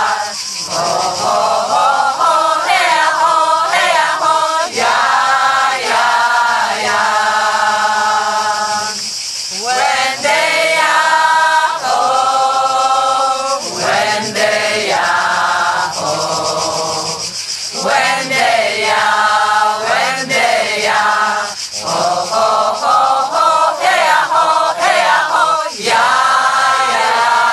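A group of men and women singing a chant together in unison, holding long notes with short breaks for breath between phrases.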